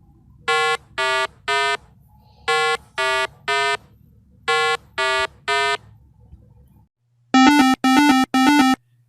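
Synthesized electronic beeps: three groups of three short tones, each group stepping down in pitch, then three louder, lower, buzzier tones near the end.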